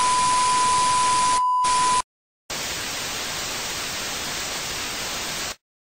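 TV colour-bar test tone: a steady high beep over hiss that cuts off about two seconds in. After a short silence comes analogue TV static, an even hiss lasting about three seconds, which stops abruptly.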